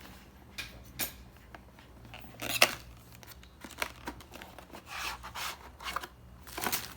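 Packaging being cut open and handled: a few short, scratchy cutting and rubbing sounds, the loudest about two and a half seconds in.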